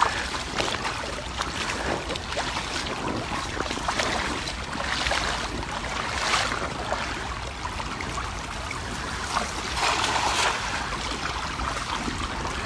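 River water sloshing and trickling as a fishing net is handled and hauled in by a man wading in the current, over a steady rush with a low rumble beneath. Louder swells of water noise come about five, six and ten seconds in.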